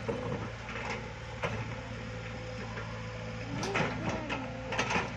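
Mini excavator's diesel engine running steadily while it digs soil, with a few sharp knocks and a brief rising and falling whine near the end.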